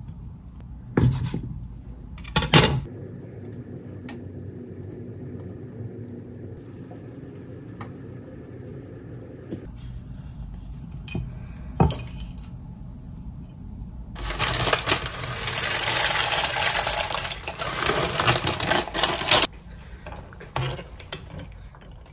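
A knife strikes a wooden cutting board a few times while crab sticks are cut, and later there are a few sharp clinks. Then a loud, dense crackling hiss runs for about five seconds and stops suddenly, with light clinks of a whisk in a saucepan near the end.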